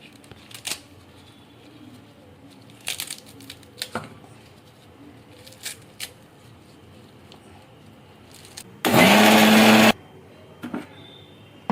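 A few scattered knocks and clicks, then an electric mixer grinder runs in one short pulse of about a second near the end. Its motor rises quickly in pitch and cuts off suddenly while grinding chopped basak (Malabar nut) leaves.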